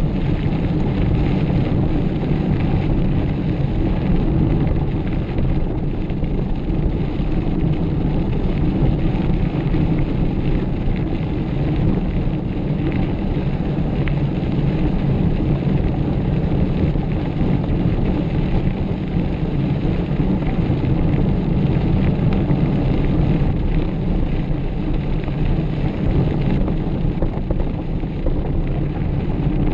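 Steady low rumble of wind buffeting the microphone and a mountain bike's tyres rolling over a dirt trail.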